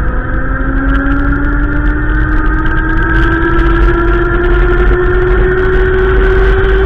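A droning tone with overtones, slowly rising in pitch throughout, over a heavy low rumble of wind buffeting the microphone.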